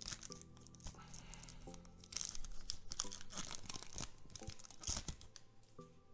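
Foil trading-card booster pack being torn open and crinkled, in repeated rough rasps that are densest about two seconds in and continue to near the end.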